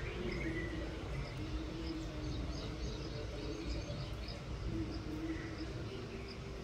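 Countryside ambience: small birds chirping in short, repeated calls over a low, steady background noise.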